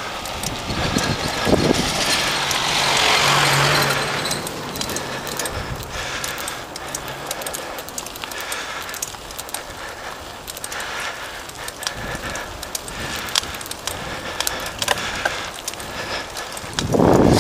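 Mountain bike riding over a dirt forest track: tyres crunching on the gravelly surface with many small rattles and clicks. A louder rush of noise comes about two to four seconds in.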